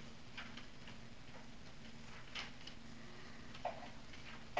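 Pen writing on paper: faint, short scratching strokes in an uneven rhythm, a couple of them louder taps and scrapes.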